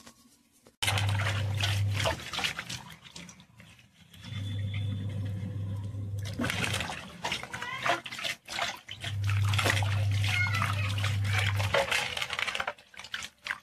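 Hands scrubbing steel lids in a pot of soapy water: swishing and splashing, with small knocks of metal. A low steady hum comes and goes in stretches of two to three seconds.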